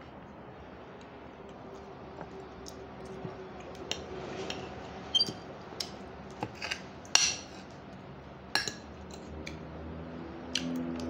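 Fork and spoon clinking and scraping against a plate while eating, in scattered sharp taps with one louder clink a little past the middle.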